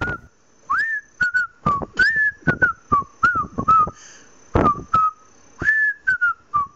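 Someone whistling a tune in short, quick notes, several of them sliding up or down in pitch.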